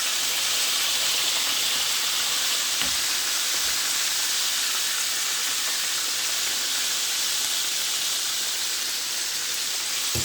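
Chicken pieces frying in hot oil in a pan: a steady, even sizzle, with two faint low knocks about three seconds in.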